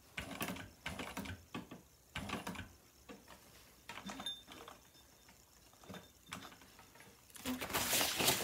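Juki industrial sewing machine stitching webbing onto sailcloth in short spurts of a few stitches, with quiet pauses between them. Near the end there is a louder, denser rustle of stiff sailcloth being moved.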